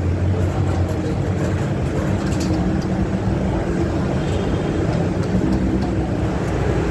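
Steady low mechanical drone with a few light clicks and taps over it.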